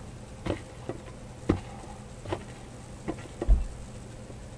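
Sticky homemade glue slime being stretched and handled, giving scattered soft clicks and pops, with a dull thump about three and a half seconds in.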